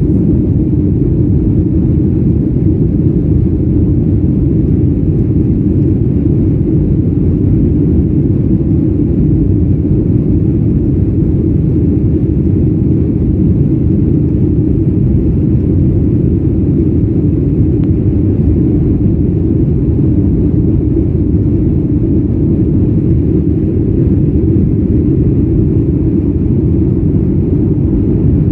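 Steady low rumble inside the cabin of a Boeing 737 MAX 9 climbing out after takeoff: its CFM LEAP-1B turbofan engines at climb power together with air rushing past the fuselage.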